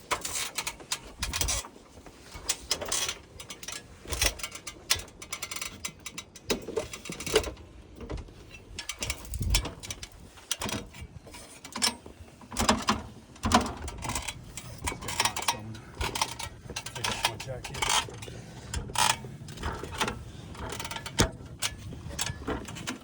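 Irregular clanks and clicks of someone climbing an extension ladder onto a roof: feet and hands knocking on the metal rungs, several knocks a second with short pauses.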